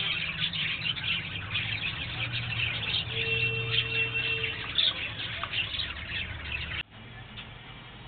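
A flock of budgerigars chattering and warbling continuously, many birds at once, over a steady low hum, with a held steady tone for a second or so midway. About 7 s in the sound drops suddenly to quieter chatter.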